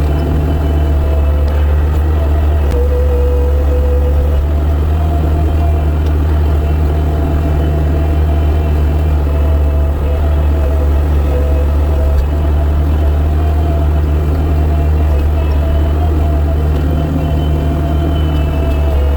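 Gehl skid steer's engine running steadily at a constant pitch, with a steady higher tone over its low drone.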